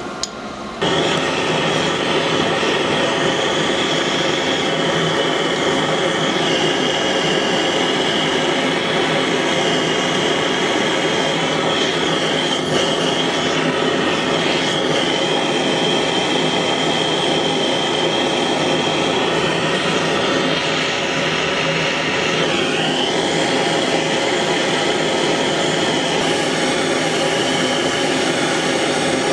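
Gas blowtorch burning steadily, a constant rushing flame that comes in about a second in, heating a brass oiler cap and ring for silver soldering.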